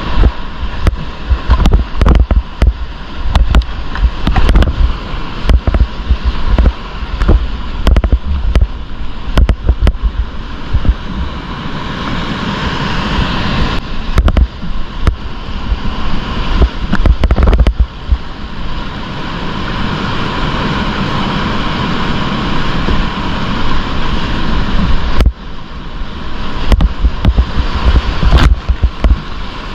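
Class V whitewater rapid rushing and churning all around a kayak running it, loud and close, with frequent sharp splashes and knocks over the rush. The sound drops out for a moment about 25 seconds in.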